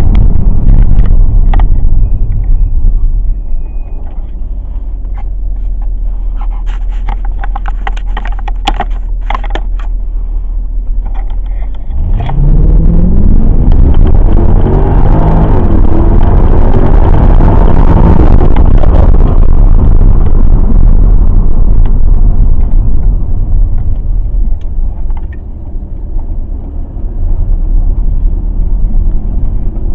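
Mercedes CLK 63 AMG V8 on the road, running at light load with scattered light clicks. About twelve seconds in it accelerates hard, its pitch rising and then holding at loud full throttle for several seconds. It eases off near the end, and the engine runs without audible misfire.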